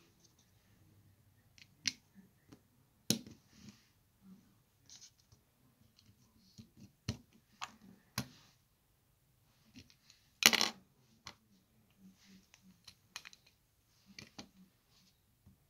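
Plastic LEGO bricks clicking and snapping together as they are pressed onto a small model car, with scattered taps and light rattles. The loudest clatter comes a little past the middle.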